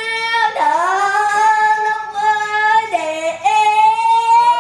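A child's voice singing long, held high notes without words, a few sustained notes in a row with brief breaks between them.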